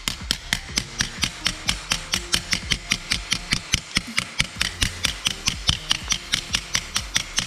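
Small hammer rapidly striking the edge of a sheet-metal repair patch lying on a concrete floor, about five sharp metallic blows a second, as the patch is shaped for welding into a car body.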